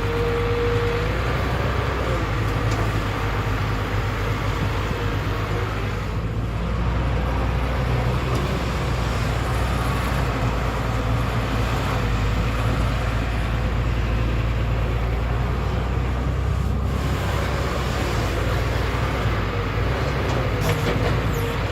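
Tata Hitachi EX200 Super excavator's diesel engine running with a steady, unbroken drone.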